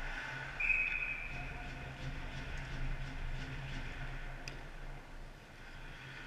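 Ice hockey arena ambience heard from behind the goal, with play at the far end of the rink: a low hum and faint distant noise from the ice. A brief high-pitched tone sounds just over half a second in and fades within about a second, and a few faint ticks follow later.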